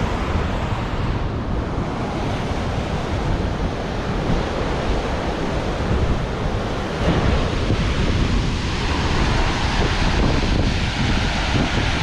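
Flood-swollen creek rushing over rocks, a steady noise of fast water, with wind on the microphone; slightly louder from about seven seconds in.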